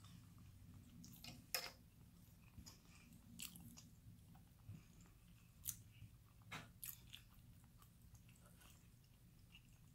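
Faint close-up chewing of food with the mouth closed, with a few sharp mouth clicks scattered through it.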